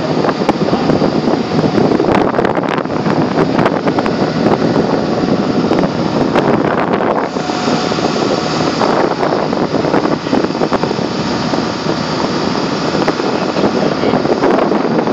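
Steady wind noise on the microphone of a moving motorboat, with the boat's running noise underneath.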